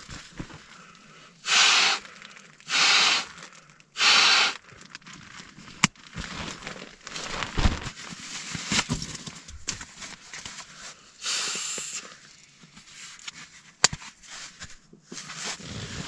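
Three short breaths blown into an inflatable camping pillow, followed by the rustling and crinkling of nylon stuff sacks and bedding being handled.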